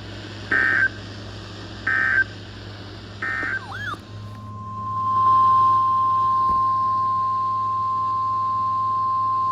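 Emergency Alert System end-of-message data bursts: three short electronic squawks about a second and a half apart, the last one quieter, which close the warning message. About four seconds in, a single steady alert tone swells up and holds. This is the NOAA Weather Radio 1050 Hz warning alarm tone that comes before the next warning.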